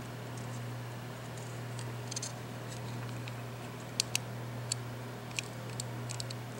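Scattered small plastic clicks and ticks as fingers press and pry at the opened Logitech G500s mouse's plastic housing. A sharp pair of clicks comes about four seconds in, over a steady low hum.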